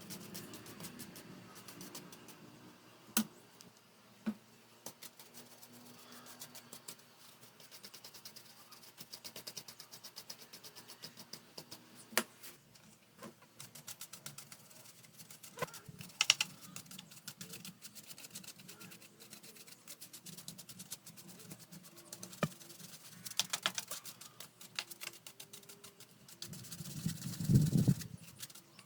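Scattered light clicks and taps of plastic fan parts being handled during cleaning, a few of them sharper knocks, with a louder rustling scrape near the end.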